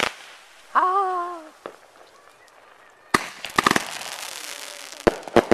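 A 30-shot consumer firework cake firing. Sharp bangs of shells bursting come at the start, a cluster of them about three seconds in followed by a lingering crackling hiss, and two more bangs near the end.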